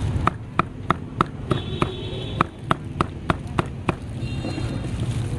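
Meat cleaver chopping roast pork on a thick wooden chopping block: sharp, regular strikes, about three a second.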